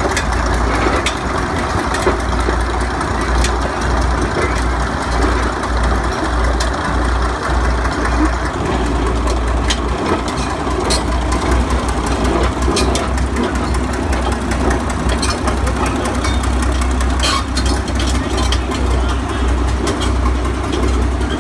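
Caterpillar Siamese Twin D8 crawler's diesel engines running steadily as the machine drives off under way, with many short sharp clanks scattered over the engine drone.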